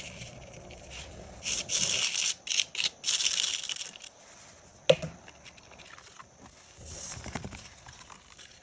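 Plastic spoon scraping and spreading coloured craft sand over a sticky sand-painting card, in gritty, hissing strokes that are loudest between about 1.5 and 4 seconds in. A single sharp tap comes about 5 seconds in, and a softer rustle follows about 7 seconds in.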